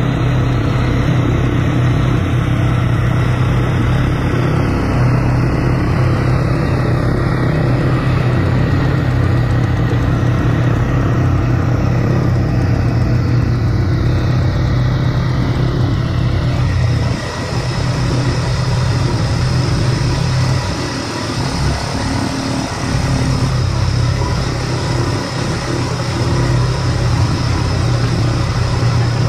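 ATV (quad bike) engine running steadily at trail-riding pace, heard from on board, with a brief easing of the throttle a little past halfway.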